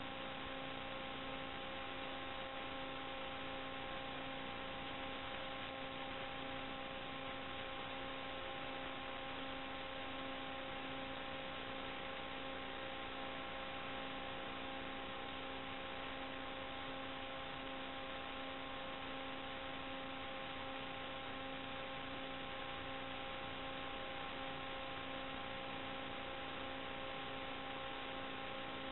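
Steady hiss and electrical hum with several fixed tones, unchanging throughout: noise on the audio channel of an analog FPV video receiver's DVR recording. The quadcopter's motors are not heard.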